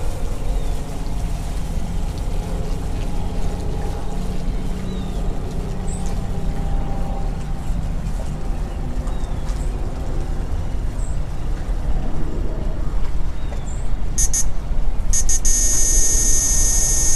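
Small boat's motor running steadily as the boat passes, fading as it moves off. About 14 seconds in, a high electronic tone sounds briefly, then comes back and runs on continuously, louder than the motor.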